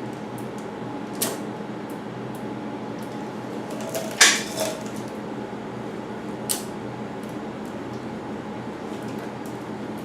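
A few sharp metallic clicks and clinks from handling bike parts and tools, the loudest a short cluster about four seconds in, over a steady background hum.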